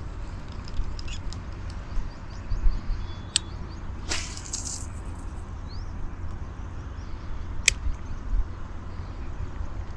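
Steady low rumble of wind on the microphone beside a lake, with faint bird chirps and a few sharp clicks. A brief hiss sounds about four seconds in, while the angler's rod is raised with his hand on the baitcasting reel.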